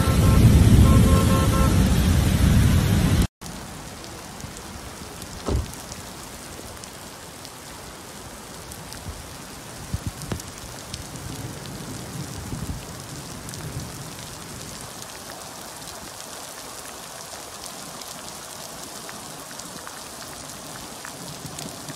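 Steady rain falling on a wet street, with a few scattered sharp drop taps. For the first three seconds, before a cut, a much louder rushing noise with a few steady tones.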